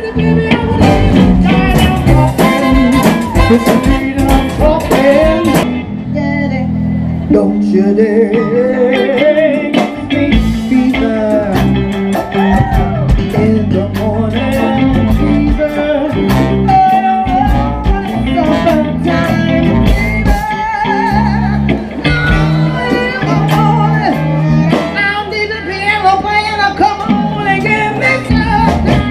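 Live band playing a blues-tinged funk groove, with electric guitar, horns, drums and a singer. The band thins out briefly about six seconds in, then the singing comes in over it.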